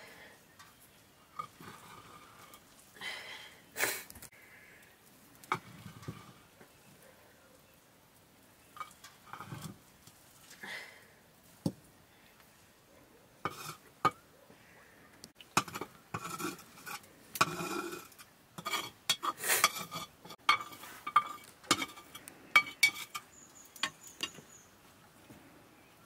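Long metal spoon stirring and scooping cooked rice in a metal pot, with irregular clinks and scrapes against the pot's rim and sides, sparse at first and coming much more often in the second half.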